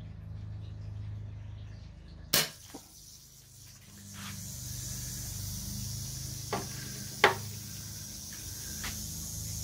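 BB gun fired at a prairie rattlesnake: sharp pops, the loudest about two seconds in and again about seven seconds in, with fainter clicks between. A steady high hiss starts with the first shot.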